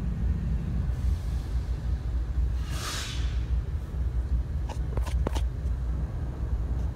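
Steady low rumble of a diesel freight train passing, heard from inside a car. A brief whoosh comes about three seconds in, and a few sharp clicks about five seconds in.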